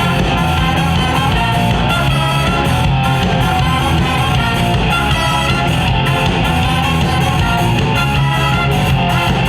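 Live rock band playing an instrumental passage with electric guitar and a drum kit, no vocals.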